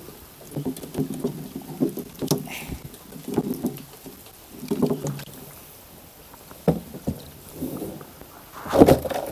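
Handling noises in a small wooden boat: scattered knocks and scrapes against the hull, with a few muffled low sounds in between and a louder bump near the end.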